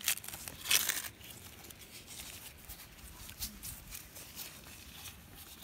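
Rustling with scattered soft clicks, loudest in the first second, as people move through the garden beds among the plants.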